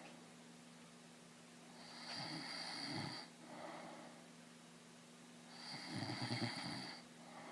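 A man snoring in his sleep: two long snores about three and a half seconds apart, the second with a fluttering rattle in it.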